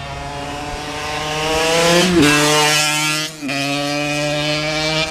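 Small scooter engine revving hard, its note climbing steadily, then dropping sharply about two seconds in and again about three and a half seconds in before holding steady.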